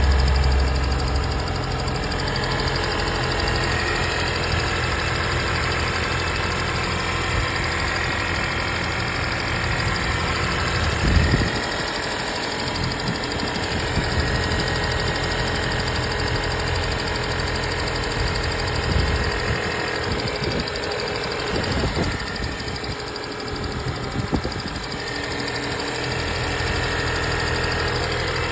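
2025 Honda Civic Hybrid Sport's four-cylinder engine running with a ticking noise. The deep low hum drops away twice, for about a second and later for several seconds, while the engine sound carries on.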